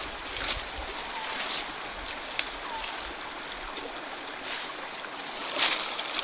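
A stream runs steadily, with dry leaves and twigs crackling as someone moves and works among them; a louder rustle comes about five and a half seconds in.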